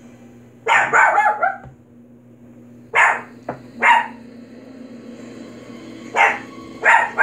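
A dog barking: a quick run of barks about a second in, then single barks around three, four, six and seven seconds in.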